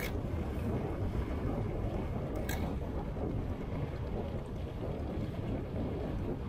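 Wind rumbling on the microphone over water rushing along the hull of a small fibreglass sailing dinghy under way. There is a brief click at the start and another about two and a half seconds in.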